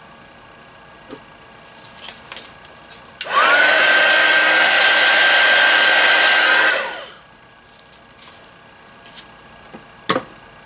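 Handheld heat gun blowing over freshly poured epoxy resin to pop surface bubbles. It switches on about three seconds in with a fan whine that quickly rises to a steady pitch, blows for about three and a half seconds, then winds down. A few light knocks of handling come before it, and a sharper one near the end.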